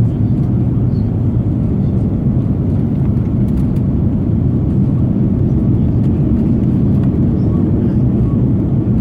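Steady low rumble inside the passenger cabin of an Airbus A330-300 landing, the engines and airframe noise heard through the fuselage.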